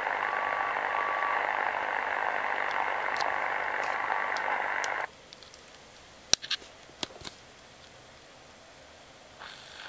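Shortwave static hiss from a DEGEN DE1103 receiver in SSB mode near 8495 kHz, with the faint tone dashes of a one-letter Morse beacon sending "M" barely audible in the noise. The hiss cuts off suddenly about five seconds in, followed by a few sharp clicks and knocks from handling the controls of a home-built 1T4 regenerative shortwave receiver.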